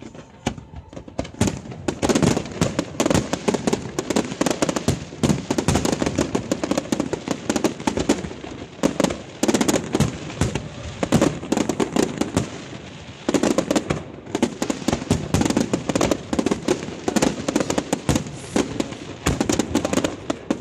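Fireworks display: aerial shells bursting and crackle effects going off, many sharp bangs and crackles in quick succession. It builds up over the first two seconds and lulls briefly about two-thirds of the way through.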